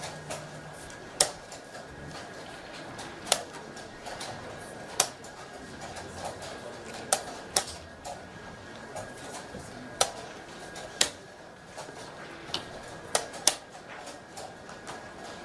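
Chess pieces being set down on a wooden board and the buttons of a digital chess clock being hit in a fast blitz endgame. About ten sharp clicks and knocks come every second or two, some in quick pairs, over a low murmur of the playing hall.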